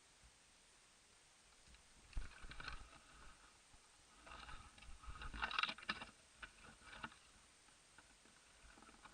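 Bursts of rustling and scraping with a few sharp knocks: a short burst about two seconds in, and a longer, louder one from about four to seven seconds.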